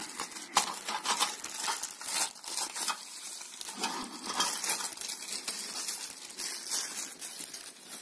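Clear plastic packaging film crinkling and rustling in irregular crackles as a plastic-wrapped part is handled and unwrapped.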